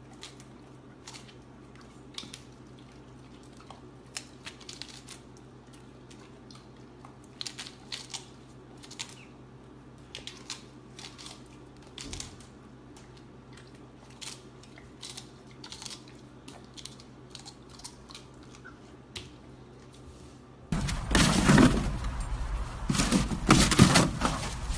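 A Labrador retriever biting and chewing a crisp romaine lettuce leaf: irregular crunches over a steady low hum. Near the end, a much louder rush of noise cuts in.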